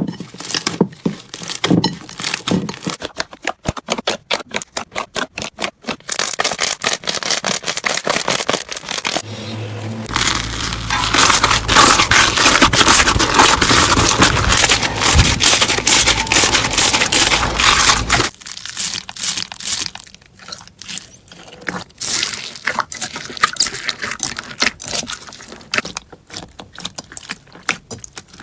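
Slime being squeezed and poked by hand: a run of quick sticky clicks, pops and crackles. It turns into a louder, denser crackle over a low steady hum for several seconds, then goes back to scattered clicks.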